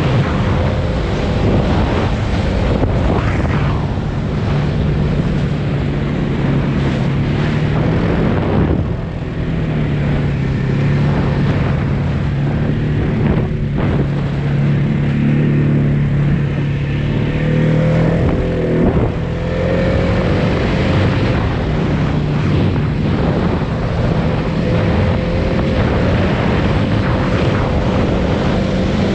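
Polaris Sportsman 570 ATV's single-cylinder engine running steadily under way, easing off briefly twice, with wind buffeting the microphone.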